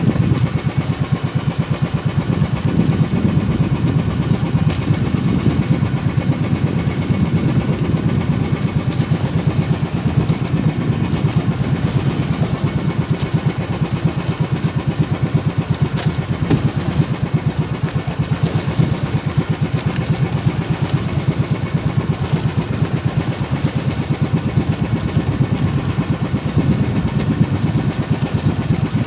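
Fishing boat's engine running steadily under way, a fast low putter that keeps an even speed throughout.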